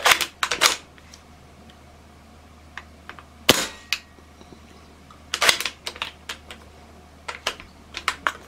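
Suppressed Hatsan Blitz .22 PCP air rifle firing sharp single shots a couple of seconds apart, with smaller metallic clicks of the side bolt being worked by hand in between. Its air pressure is down below 150 bar from an air leak, so it is not cycling on its own.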